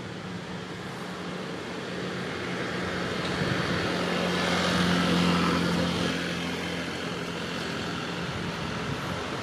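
A motor engine running steadily, getting louder towards the middle and then easing off.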